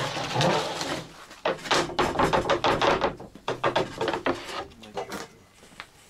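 Plywood cutout knocking and clattering as it is handled and moved, a quick run of irregular wooden knocks in the middle that thins out near the end.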